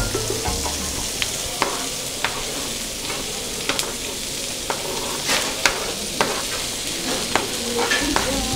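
Chopped vegetables sizzling as they drop into melted margarine in a hot frying pan, with a steady hiss. A metal spoon clicks and scrapes a dozen or so times as it pushes them off a cutting board into the pan.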